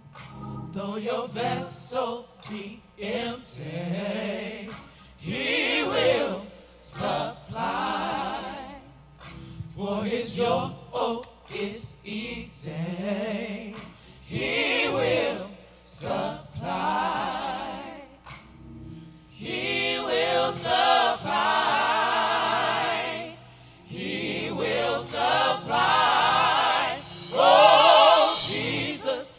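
Small gospel choir of men's and women's voices singing together, phrase after phrase with short breaks between.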